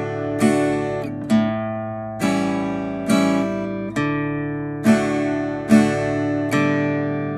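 Acoustic guitar played with a pick in a 3/4 waltz pattern: the chord's bass note struck on the first beat, then two strums, the chords ringing on. The strokes come evenly, a little under a second apart.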